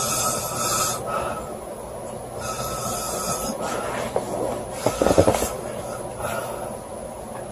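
A woman snoring loudly in her sleep: raspy breaths every couple of seconds, with a louder rattling snore about five seconds in.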